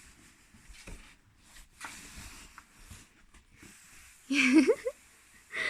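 Soft, brief scraping and rustling of a cardboard box being dragged across the floor with a cat riding inside. About four seconds in comes one short pitched sound that bends up and down, a voice or a cat's call.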